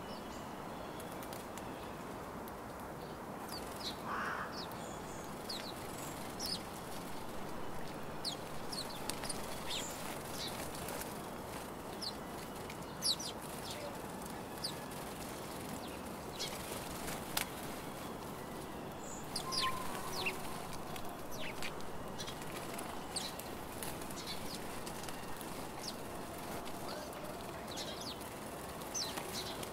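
House sparrows at a seed feeder: scattered short chirps and chips from the flock, with wing flutters as birds land and take off, over steady background noise.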